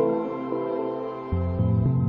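Calm, ambient-style background music with held melodic notes. The music thins out briefly, then a low bass note comes in about a second and a half in.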